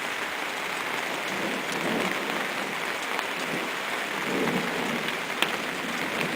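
Steady rain falling, an even hiss, with a few faint sharp ticks near the end.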